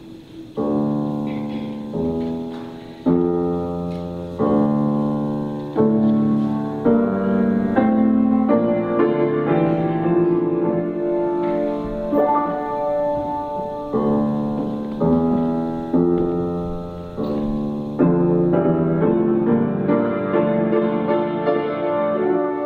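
Piano playing slow chords, starting about a second in; each chord is struck and then fades.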